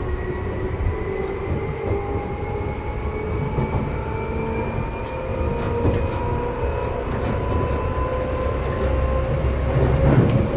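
Seibu 2000 series electric train running: a whine from the traction motors and gears rising slowly in pitch as the train gathers speed, over a steady rumble of wheels on rail. A louder knock comes near the end.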